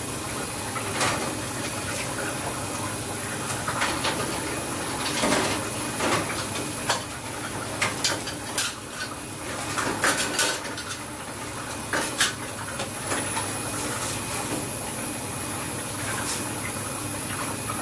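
Metal ladle clinking and scraping against large aluminium stockpots, in irregular knocks over a steady background noise.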